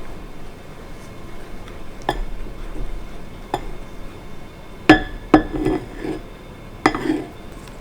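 A series of sharp clinks of hard objects, five in all, each ringing briefly. The loudest pair comes about five seconds in, with short rubbing or scraping sounds after the later clinks.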